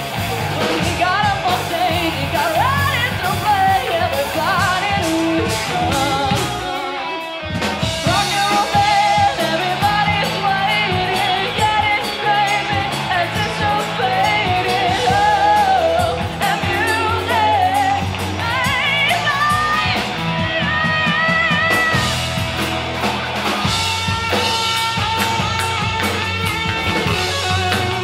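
Live rock band playing: a woman singing lead over electric guitars and a drum kit. The band drops out briefly about seven seconds in, then comes straight back.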